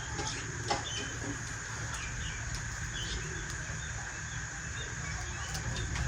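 Small birds chirping now and then over a steady background hum.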